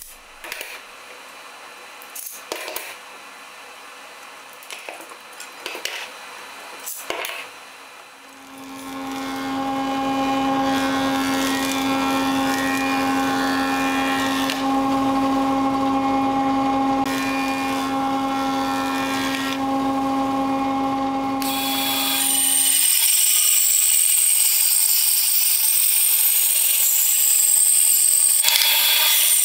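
A few light knocks and clicks of workshop handling. About eight seconds in, a planer-thicknesser starts up and runs with a steady motor hum as a wooden strip is fed across its cutter block. Near the end this gives way to a bandsaw cutting a wooden strip, with a high whine.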